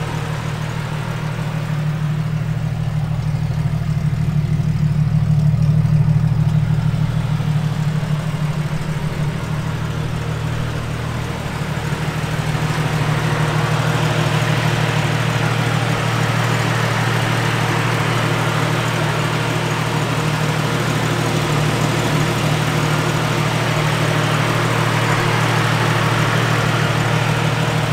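An engine idling steadily with a low hum that swells and eases slightly.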